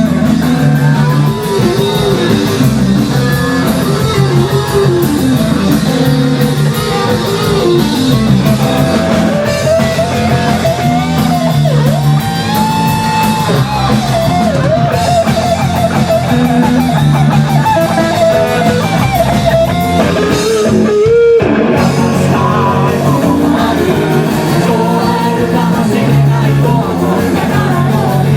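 Live rock band playing loudly, with electric guitars, bass and drums and a bending melody line over the top. Most of the band stops for a moment about three-quarters of the way through, then comes back in.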